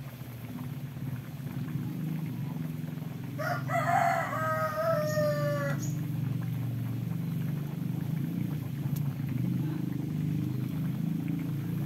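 A rooster crows once, about three and a half seconds in, lasting a little over two seconds and ending on a held note, over a steady low hum.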